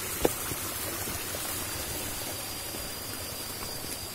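Steady rush of flowing water, like a stream, with one sharp knock about a quarter second in and a thin, high, steady whine that grows stronger near the end.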